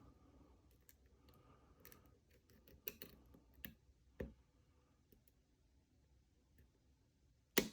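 Sparse, faint clicks of a lock pick working the pins of a six-pin Sargent pin-tumbler lock held under heavy tension, with one sharper click near the end.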